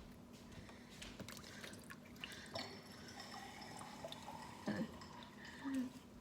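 Faint dripping and small splashes of water, with light clicks from handling, over a steady low hum.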